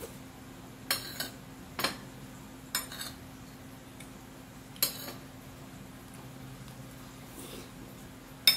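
Metal spoon clinking and scraping against a plate while eating, about seven short sharp clinks, the loudest near the end.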